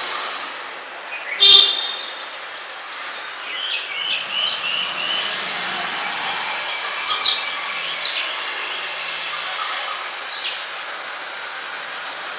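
Birds chirping and calling over a steady background of outdoor noise. There is a loud call about a second and a half in, a run of softer chirps after it, and two sharp calls close together around seven seconds.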